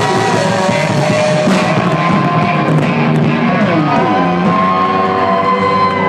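Live rock band playing loudly: electric guitar lead with bent, sliding notes over drums.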